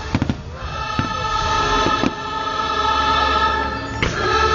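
Choral music from the fireworks show soundtrack, a choir singing held notes over orchestra. Aerial firework shells bang over it: a quick cluster at the start, single reports about one and two seconds in, and another near the end.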